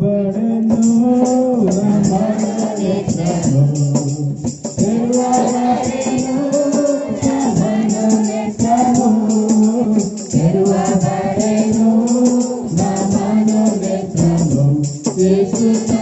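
Christian devotional song: singing over a steady shaker and tambourine rhythm.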